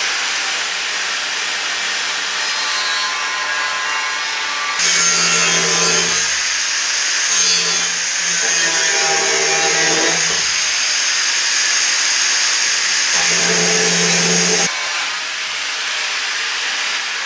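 Angle grinder with a cutting disc sawing through a steel Z-profile to cut it to length, running continuously. Between about five and fifteen seconds in, the grinding carries a steady high whine.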